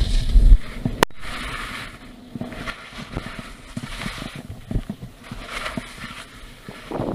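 Skis hissing and scraping over tracked snow in a run of turns, one swoosh roughly every second or so. Wind on the microphone dies away about half a second in, and there is a sharp click about a second in.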